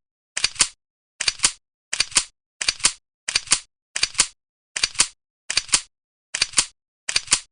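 An edited click or snap sound effect, each a quick double click, repeating evenly about every three quarters of a second with silence between. This is the kind of per-step sound laid over a stop-motion LEGO build.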